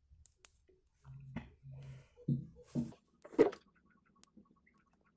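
Faint handling noises of a small electronic part being fitted by hand: a few sharp clicks and rustles as fingers bend and place a ceramic capacitor's wire leads onto an IC's pins.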